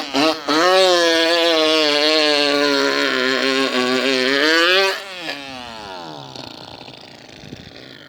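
Mouth-made sound effect: a man's voice imitating a revving motor engine. It leaps up at the start, holds a high, slightly wavering buzz for about four and a half seconds, then drops and winds down in a falling glide that trails off.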